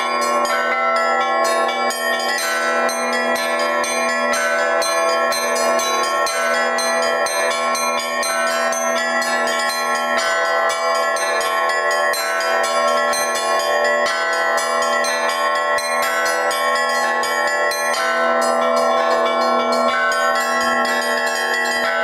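Russian Orthodox church bells played by one bell ringer in the traditional zvon style: fast, continuous strokes on the small treble bells over the sustained ring of the larger bells.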